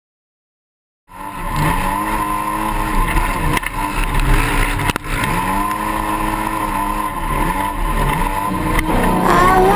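A Polaris RZR side-by-side's twin-cylinder engine at race pace, its revs rising and falling again and again as the throttle is opened and eased. It starts about a second in, and music comes in near the end.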